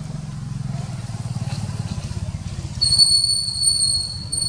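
A low, steady motor hum, joined about three seconds in by a loud, high, steady whistling tone that breaks off for a moment near the end.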